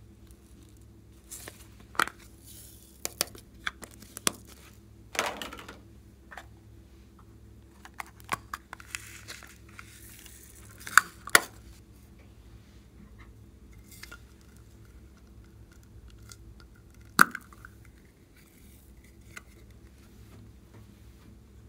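Slime-mixing handling sounds: scattered sharp taps and clinks of containers and utensils, with a few short rustling or crinkling smears. A steady low hum runs underneath.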